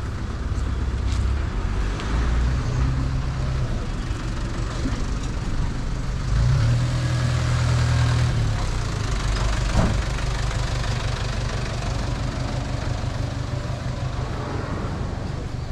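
A motor vehicle's engine running close by over street traffic noise. Its low drone swells for a couple of seconds about halfway through.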